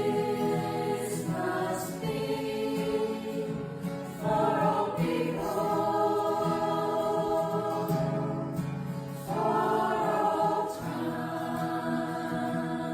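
Background music: a sung song with long held vocal notes over accompaniment, changing in phrases every few seconds.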